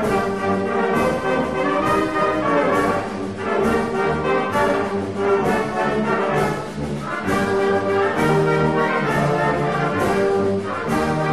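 Background music: brass-led orchestral music with a steady beat.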